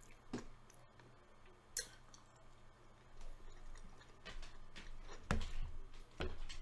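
Close-up eating sounds: soft chewing of a meatball with a few sharp clicks of a metal fork against a plate, more frequent in the second half.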